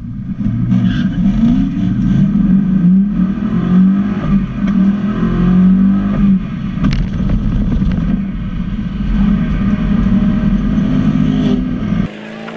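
331-cubic-inch small-block Ford V8 in a Fox-body Mustang pulling hard down the drag strip, heard from inside the cabin, its pitch rising and falling through the gears. On this pass the driver says a missed shift into third dropped the car into first gear and set it shaking badly. About twelve seconds in the engine sound cuts off to quieter track background.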